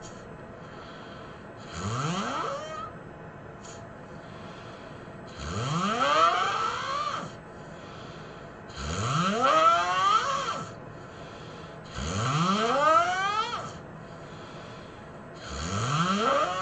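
A person snoring loudly: five long snores about every three and a half seconds, each rising in pitch as it goes.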